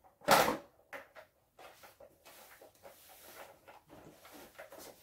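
Hard plastic toy pieces being handled: one sharp clack about a third of a second in, a couple of lighter clicks just after, then softer rattling and rustling.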